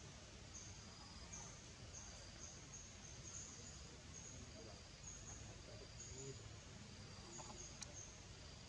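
Faint forest ambience: short high-pitched chirps repeat about once or twice a second, alternating between two pitches, over a low background hiss, with one sharp click near the end.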